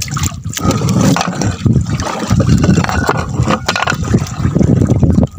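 Seawater splashing and sloshing, with irregular knocks and scrapes.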